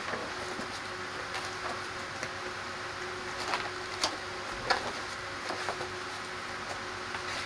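Stiff pages of a wallpaper sample book being turned by hand: a few short, sharp page slaps and rustles about halfway through, over a steady background hiss and faint hum.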